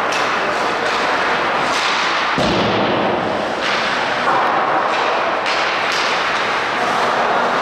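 Ice hockey rink noise during play: a steady wash of sound broken by several sharp cracks and thuds of sticks, puck and boards.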